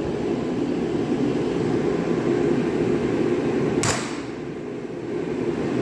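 A steady low hum of background noise, broken by one sharp click or knock about four seconds in.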